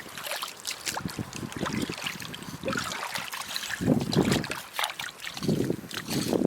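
Irregular clicks and scrapes of stones being stepped on and moved on a rocky shore, with water trickling and wind buffeting the microphone in gusts.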